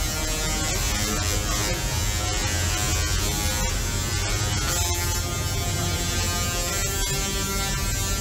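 Musical Tesla coils playing the ride's theme tune: a harsh, buzzing electric tone that moves through a melody of held notes.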